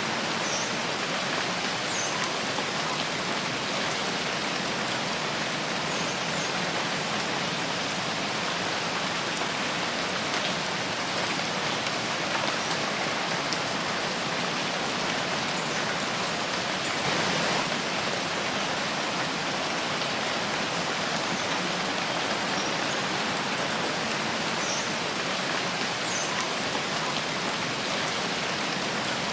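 Steady rain falling in a forest, an even, dense hiss of drops, with a few faint, brief high chirps now and then.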